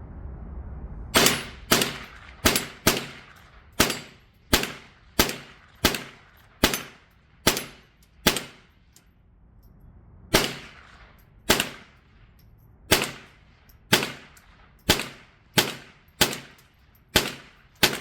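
.22 LR firearm fired about twenty times in a steady string at steel targets, the shots roughly half a second to a second apart with a pause of about two seconds partway through.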